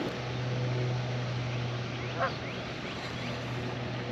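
A single short waterfowl honk about two seconds in, with a few faint high bird chirps, over a steady low hum.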